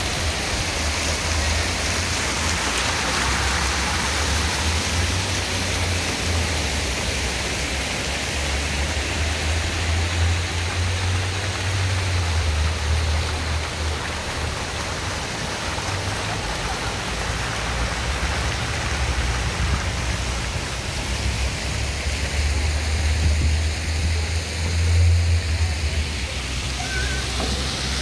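Fountain jets splashing into a stone basin: a steady rush of falling water, with an uneven low rumble underneath.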